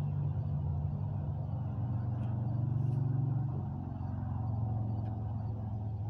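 A vehicle engine running with a steady low hum, its pitch stepping down slightly about two seconds in and again near four seconds.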